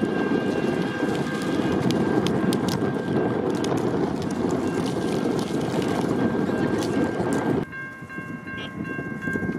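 Rail vehicle running at a level crossing: a steady heavy rumble with a constant high whine and scattered sharp clicks, dropping off suddenly about eight seconds in to a quieter hum of steady tones.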